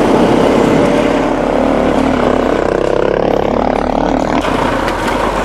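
KTM 500 EXC enduro motorcycle's single-cylinder four-stroke engine running while riding along a trail, its pitch rising and falling about halfway through as the throttle is worked.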